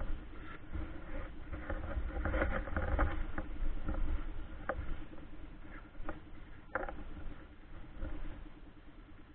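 Rustling and fumbling of a life jacket being fastened, with a few sharp clicks of its buckles, over a low rumble that fades after the first half.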